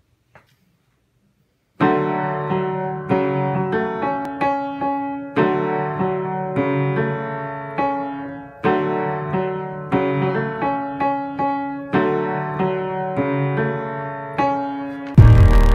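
Upright piano played in chords, a new chord struck about every half second to second and left to ring and decay, in a short phrase that repeats; it starts about two seconds in. Near the end, much louder music with a heavy bass beat cuts in abruptly.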